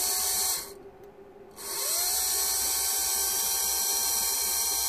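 Repaired electric pump motor from a Mitsubishi Shogun HBB brake unit, running on a 12-volt bench supply. It runs briefly and stops about half a second in, then starts again a second later, its whine rising as it spins up and then running steadily. The repaired motor is working.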